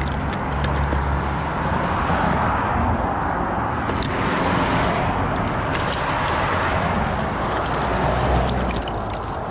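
Road traffic going by, a steady rush of vehicle noise that swells for several seconds, with a few light clicks.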